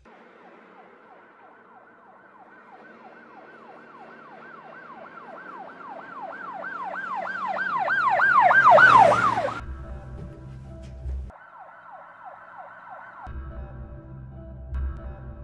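Siren sound effect: a fast, repeating falling yelp, about three sweeps a second, growing steadily louder for about nine seconds and ending in a short burst of noise. It comes back briefly on its own a few seconds later, with low droning music around it.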